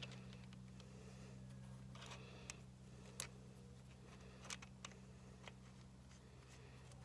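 Near silence: a steady low hum, with a few faint clicks and taps of small fitting parts being handled.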